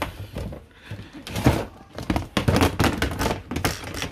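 Repeated knocks and clatter of a plastic storage box being handled and opened, with its handle and contents bumping.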